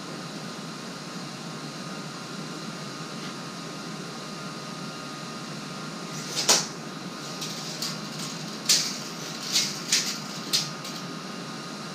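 Over a steady background hiss, a series of sharp clicks and metallic rattles from about halfway on, as a steel tape measure is handled and its blade pulled out.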